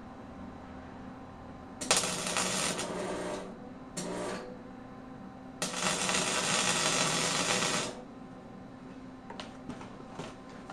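Lincoln Electric gasless flux-core wire welder laying tack welds on steel tubing, with the arc running three times: about a second and a half, then a brief burst, then about two seconds. A few light taps follow near the end.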